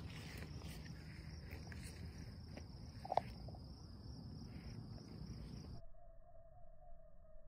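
Crickets chirring steadily in a night-time chorus, with a brief, louder sharp call about three seconds in. About six seconds in the chorus cuts off abruptly, leaving a faint, steady, slightly wavering tone.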